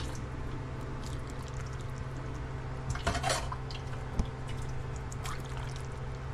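Chickpea cooking water ladled into a bowl of chickpeas, with a few brief splashes and a click over a steady low hum.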